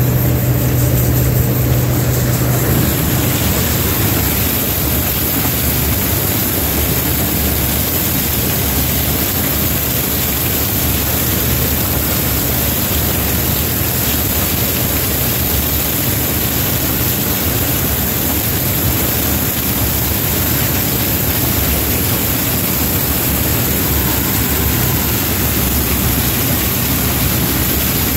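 Combine harvester running steadily, with engine hum and an even rushing noise. A strong low hum drops away about three seconds in.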